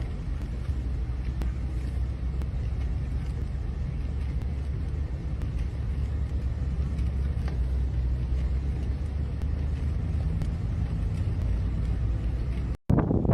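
Steady low rumble with a fainter hiss above it, cut off abruptly near the end.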